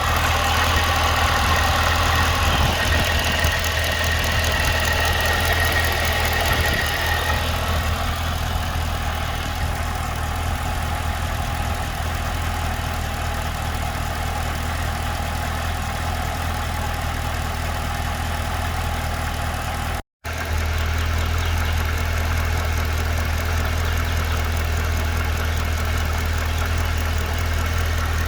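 2012 Cadillac CTS-V's supercharged 6.2-litre V8 idling steadily, with the ticking/knocking noise the owner is trying to track down. A high whine fades away over the first several seconds, and the sound drops out for a split second about two-thirds through.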